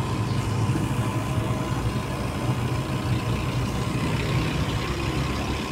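Steady engine and road noise inside a moving car's cabin, a low even drone.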